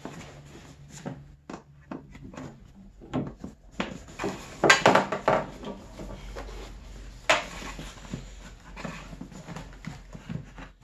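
Snowmobile tail light wiring and its plastic tail light assembly being handled and fed back through the rear seat cowl: scattered light clicks, knocks and rubbing of wire and plastic, with a sharper knock a little past halfway.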